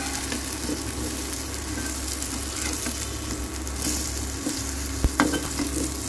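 Rice-flour-coated eggplant slices sizzling as they shallow-fry in mustard oil. A metal spatula scrapes and taps against the pan as it flips the slices, with a sharp knock about five seconds in.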